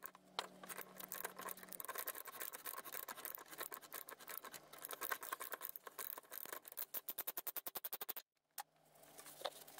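Faint ratchet clicks from a manual pipe threader as the die head is worked around black iron pipe to chase its threads, sped up and quickening to a fast run of clicks, with a short stop and a few scattered clicks near the end.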